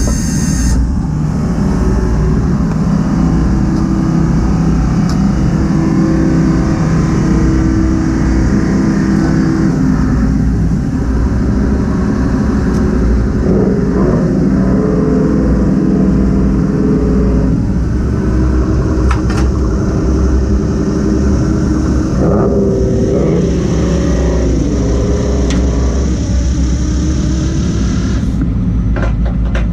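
Fishing boat's machinery running with a loud, steady low rumble and a hum that shifts up and down in pitch.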